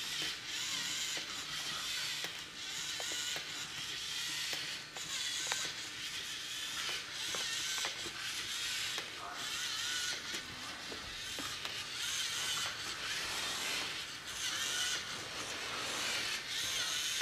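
LEGO Mindstorms NXT Alpha Rex humanoid robot walking: its NXT servo motors whir and its plastic gears click and rattle, in regular surges that come again every second or so.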